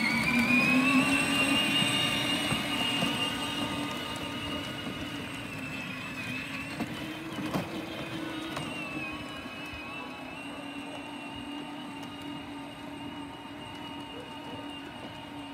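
Electric motors and gearboxes of a kids' battery-powered ride-on UTV whining as it pulls away under load with a trailer, the pitch rising at first, then holding steady and slowly fading as it drives off.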